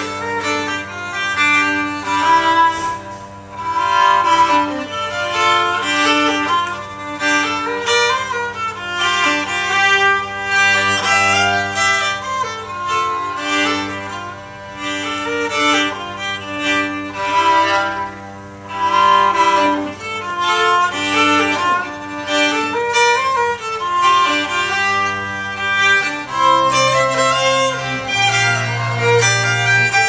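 Two fiddles playing an instrumental folk tune together over an upright bass. The low bass notes grow louder in the last few seconds.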